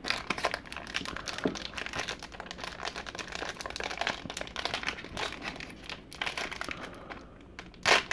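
A 1991 Leaf Studio baseball card pack wrapper crinkling and crackling as it is handled and torn open by hand, with a louder crackle near the end.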